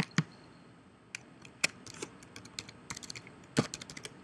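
A string of irregular sharp clicks and taps, about a dozen or more, the first one the loudest, with a quick cluster near the end.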